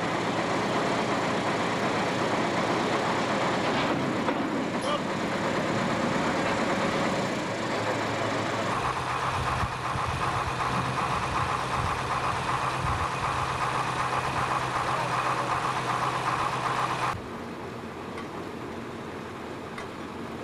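Engine of a truck-mounted crane running steadily. The sound changes abruptly about a third of the way in, when a steady hum comes in, and drops quieter near the end.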